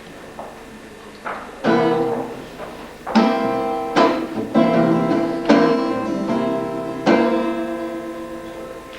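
Guitar strumming chords in a slow, uneven rhythm, each chord ringing and fading, after a quiet opening second or so: the instrumental intro to a song.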